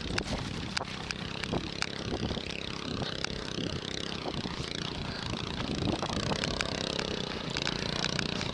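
Honda GX340 11 hp single-cylinder engine running on a homemade belt-drive go-kart, its pitch shifting slightly as it drives, with scattered sharp clicks.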